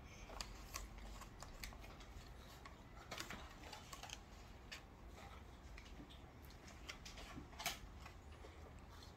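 Faint, irregular light clicks and taps of a plastic rice paddle spreading cooked rice over a sheet of nori on a bamboo rolling mat and scooping from the rice cooker pot.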